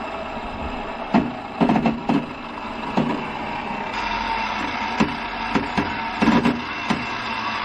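Table saw running steadily, with a series of sharp knocks and cracks, several in quick clusters.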